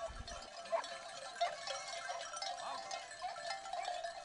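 Bells on a herd of goats clinking and ringing in a busy jumble as the goats move about, with an occasional bleat.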